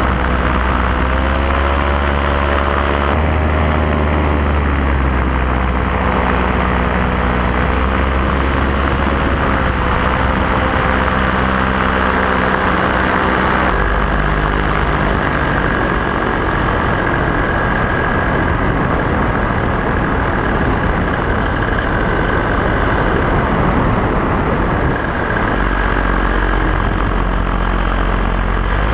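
Paramotor engine and propeller running steadily in flight, its pitch wavering slightly, with wind rushing past the microphone. The tone changes abruptly about three seconds in and again about halfway through.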